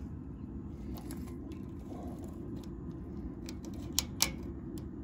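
Small metallic clicks and clinks of stainless wire-mesh bug screens and their wire springs being fitted over an RV furnace vent, with two sharp clicks near the end, over a steady low background noise.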